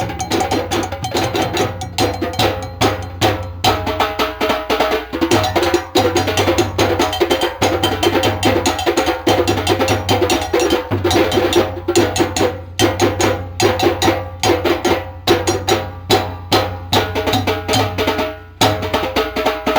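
Ensemble of hand drums playing a fast, driving rhythm for African dance, with dense, continuous strokes.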